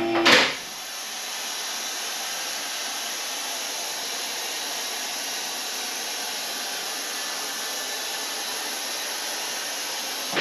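Vehicle lift lowering the truck: a steady hiss that holds level and cuts off suddenly near the end.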